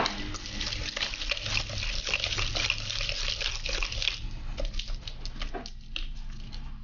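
Wire balloon whisk beating a wet egg-yolk, sugar and flour batter in a stainless steel bowl: a rapid run of wet clicks and scrapes of the wires against the steel, thinning out about four seconds in.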